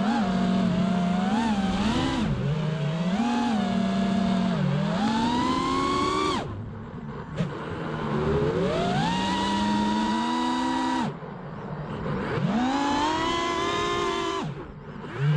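Brushless motors and props of a 5-inch FPV racing quadcopter, whining and rising and falling in pitch with the throttle. Three times the throttle is chopped and the whine drops away briefly before spooling back up.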